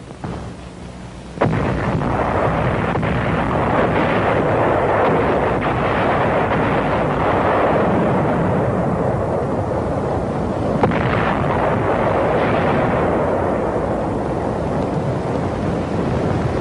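Pre-landing bombardment: a low steady hum at first, then about a second and a half in a sharp blast sets off a continuous din of explosions, with another sharp blast about eleven seconds in.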